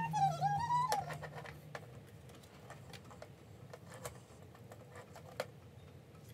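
A small electronic toy gives a high, wavering squeaky voice for about the first second, then scattered light clicks and taps of small plastic toys being handled and set down.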